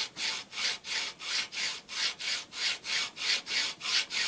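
Flat hand file rasping back and forth over a coin set in a wooden holder, in even strokes of about three a second, grinding one face of the coin down flat.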